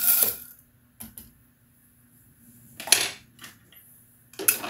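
Short metallic clinks and rattles in three bursts: one at the start, one about three seconds in, and one near the end. They come from a rod being put down into the primer magazine tube of a Dillon 550C reloading press that holds small pistol primers.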